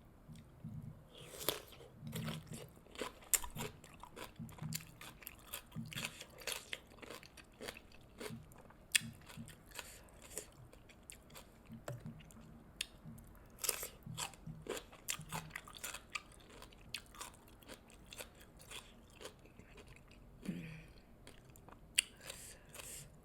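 Close-miked biting and chewing of sauce-coated fried chicken drumsticks: irregular crunches of the breading and wet mouth clicks.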